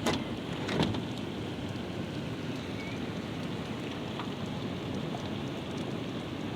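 Steady heavy rain falling in a thunderstorm, with two brief knocks in the first second.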